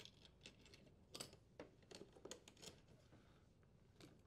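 Near silence, with a few faint clicks and rustles of the dishwasher's power-cord wires and strain relief being handled and drawn out of the junction box.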